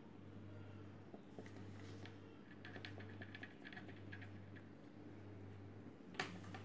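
Faint quick taps and scratches of a felt-tip marker drawing a dotted line on paper, over a steady low hum, with one sharper click near the end.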